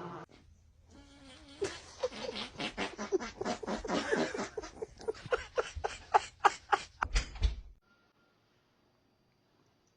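A long sputtering fart, ragged at first, then breaking into rapid pulses about four a second. It stops about eight seconds in.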